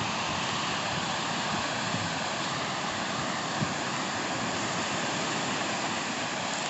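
Steady rushing noise of sea surf and wind heard through a seaside pine grove, with a soft low thump about three and a half seconds in.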